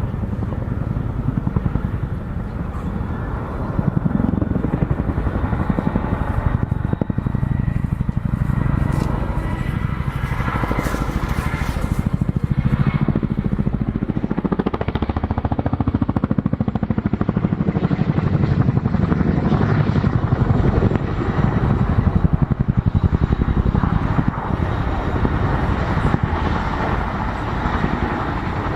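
Boeing Chinook HC2 tandem-rotor helicopter manoeuvring in a display. Its twin rotors beat rapidly and heavily, with turbine whine above, and the sound swells and eases as the aircraft pitches and turns.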